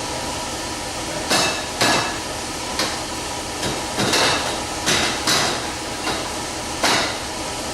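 Irregular metallic knocks and taps on steel roll-cage tubing as the bars are loosened, slid and seated together during assembly. There are about nine sharp strikes over some five seconds, starting about a second and a half in, over a steady background hiss.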